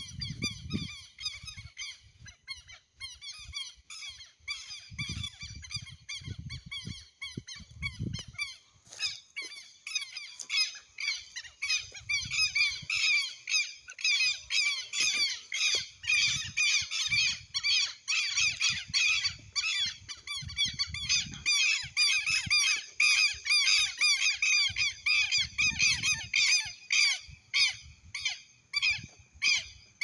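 A flock of birds calling together in a dense chorus of rapid, high chirps that grows louder from about ten seconds in. Brief low rumbles on the microphone come a few times.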